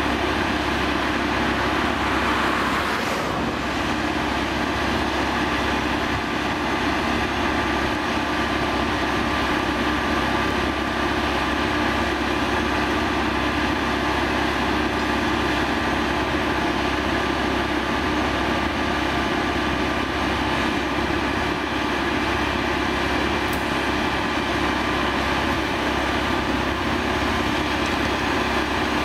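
Plasser & Theurer APT 1500 RA rail-welding machine's engine running steadily, with an even mechanical hum.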